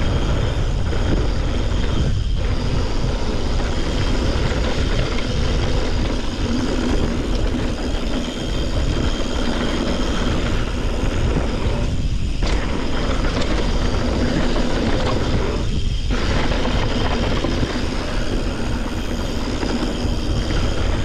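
Wind buffeting the microphone of a rider-mounted camera and mountain bike tyres running over a rough dirt and rock trail at speed, a steady loud rush with three short dips.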